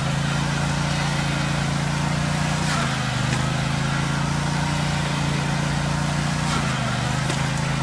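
Riding lawn mower engine running steadily, with its pitch dipping slightly a couple of times.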